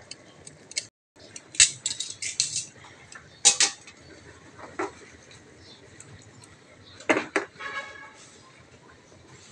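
Metal tongs clinking and knocking against a frying pan while pieces of tuna are turned in it: scattered sharp clinks in small clusters, one near the end followed by a short ringing.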